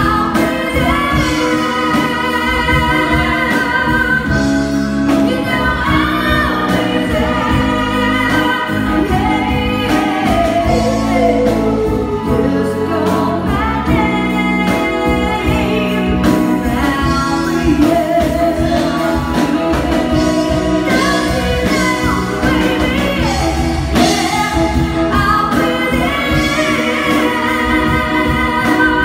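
Live band performance: several women singing together into microphones over drums, electric guitar, bass guitar and keyboards, loud and continuous.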